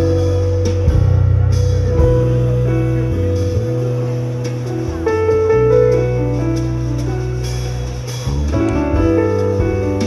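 Jazz-fusion quartet playing live: keyboard, saxophone, bass guitar and drums, with long held notes over a steady bass line.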